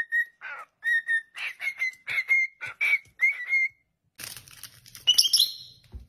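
Cockatiel whistling a tune of short, clear notes, some sliding upward. Near the end comes rustling and a brief, loud, high-pitched sound.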